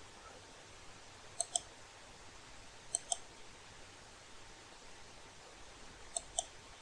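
Faint clicks of a computer mouse button, in three quick pairs about a second and a half to three seconds apart.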